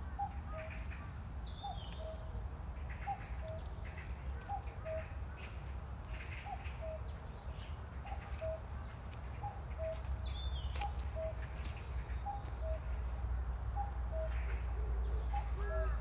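A bird repeats a short two-note call, a higher note then a slightly lower one, evenly about once every three-quarters of a second, over a steady low rumble. Near the end a second bird joins with quick arched calls.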